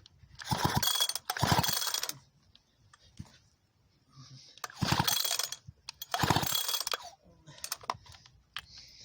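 Recoil starter of a 56cc Sachs Dolmar 116 two-stroke chainsaw pulled four times, in two pairs, the pawls ratcheting as the engine spins over without firing: a spark test with no spark at the plug, whose electrodes have welded together.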